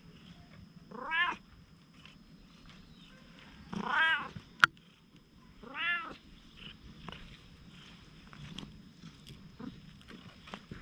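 A stray cat meowing three times while being petted, the middle meow the longest. A single sharp click comes just after the second meow.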